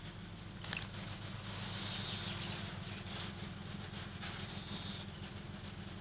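A small tit bathing in a shallow bird bath, fluttering and splashing the water, over a low steady hum. A sharp, high double click about a second in is the loudest sound.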